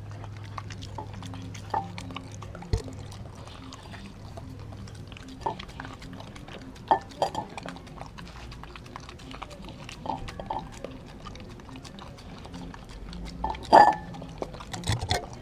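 A dog eating raw meat from a glass bowl: wet chewing, licking and smacking, with irregular clicks and knocks of teeth and snout against the glass, the loudest knock near the end.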